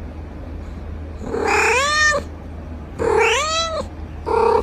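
A cat giving two long drawn-out meows, each rising then falling in pitch, followed by a short third call near the end.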